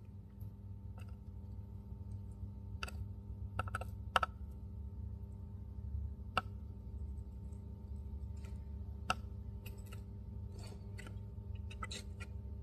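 Soldering iron tip tapping against a circuit board's pins and solder pads while a component is soldered in: scattered light clicks, the sharpest about four, six and nine seconds in, over a steady low hum.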